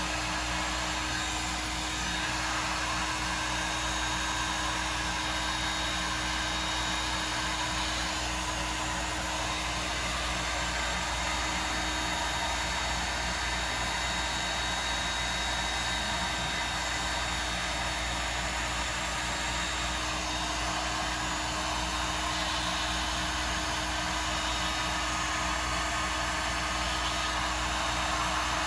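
Heat gun running on its high setting: a steady blowing whir with a low motor hum.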